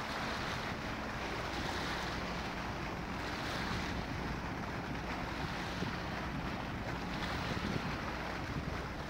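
Wind buffeting the microphone over small waves lapping on a rocky shore, with a faint steady hum underneath.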